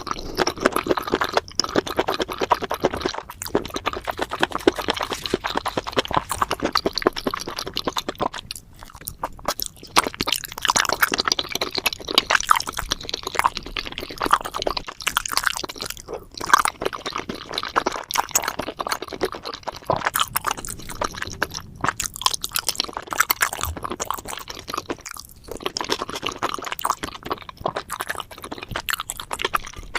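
A person chewing spicy seafood and mushrooms, close to the microphone: a dense run of short mouth clicks and bites, with a few brief pauses.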